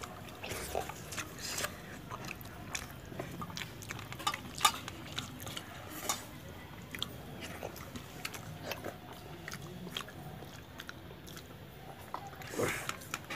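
Eating rice with the fingers from a steel plate: scattered light clicks of fingers and rice against the plate, along with chewing.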